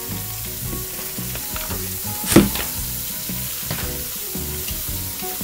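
Chicken breasts sizzling steadily as they cook, with a sharp knock about two seconds in and a softer one a little later.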